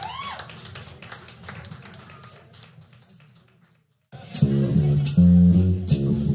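Live hard-rock band recording: the band's sound fades out over about four seconds into a moment of silence, then the next song starts with an electric bass riff under a cymbal struck about twice a second.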